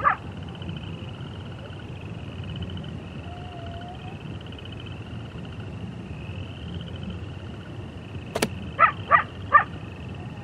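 Outdoor wildlife ambience: a steady high trill over low background noise. Near the end comes a sharp click, then three short, quick yips from a wolf.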